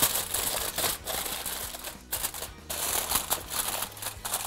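Aluminium foil crinkling and crackling as hands press and crimp it down around a springform pan, with a few brief pauses.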